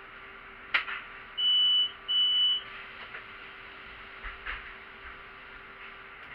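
Inside a city bus: a click, then two high electronic beeps of about half a second each in quick succession, over a steady low hum that stops near the end.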